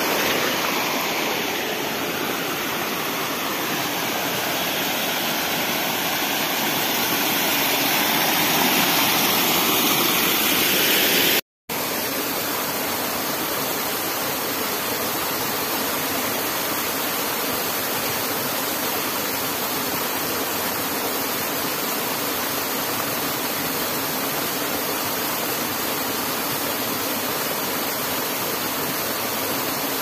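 Small creek waterfall: the steady rush of falling and flowing water. The sound cuts out for an instant about a third of the way through and resumes.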